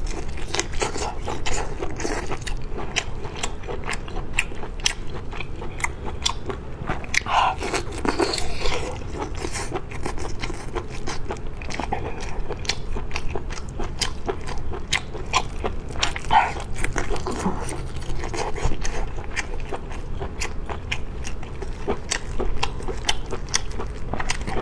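Close-miked eating of red-glazed ring sausages: steady biting and chewing, with many quick wet mouth clicks and crisp crunches throughout.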